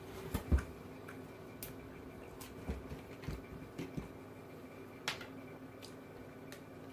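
Scattered light clicks and taps, with a few low knocks in the first second and another group around three to four seconds, over a faint steady hum.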